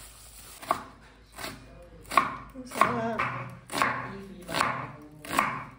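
Chef's knife slicing an onion on a wooden cutting board: seven cuts, about one every three-quarters of a second, each a crisp crunch through the onion ending on the board.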